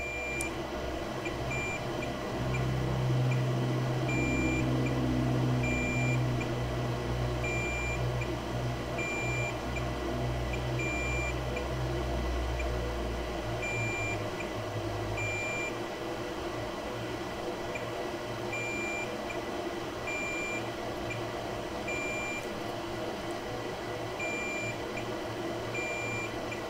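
Digital multimeter's beeper giving short, high beeps about once a second, with irregular pauses, as a probe is held on the iPhone logic board. A low hum runs underneath and stops about halfway through.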